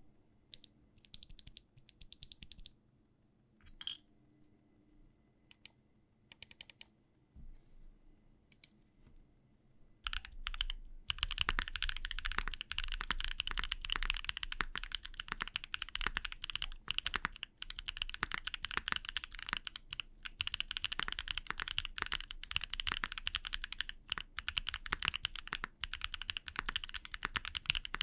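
Mechanical keyboard with deep-leaning HMX Reze tactile switches (PA12 top housing, P4 bottom housing, H2 stem) in an aluminium plate with no foam, under GMK Klassiker keycaps. A few scattered keystrokes come first, then steady fast typing from about ten seconds in.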